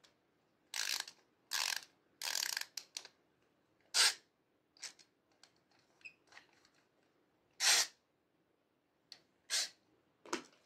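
Small hard-plastic toy being twisted and worked by hand: a string of short, scratchy plastic scrapes and ratchety clicks with pauses between. The loudest come about four and about eight seconds in.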